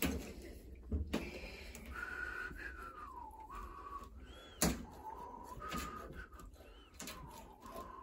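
Soft whistling of a tune, moving between a few notes with short glides, over a few sharp clicks and knocks from metal boiler fittings being handled.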